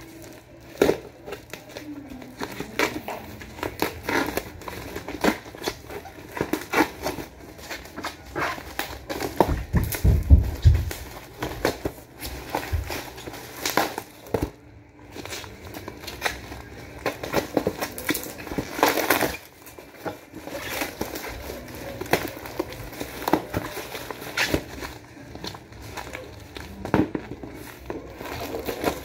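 Plastic packaging and bubble wrap crinkling and crackling in irregular bursts as a parcel is unwrapped by hand, with a low thump about ten seconds in.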